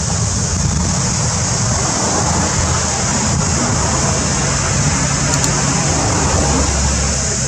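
Steady outdoor background noise: a low rumble with a constant high-pitched hiss over it, and no distinct events.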